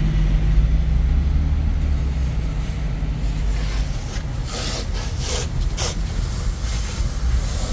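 Engine and road rumble heard from inside a car. Several brief hissing rushes come about four to six seconds in.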